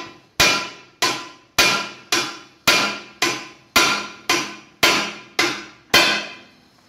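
Sledgehammer beating on the dented rim of a steel car wheel to straighten it: a dozen sharp, ringing metal blows at about two a second, stopping about a second before the end.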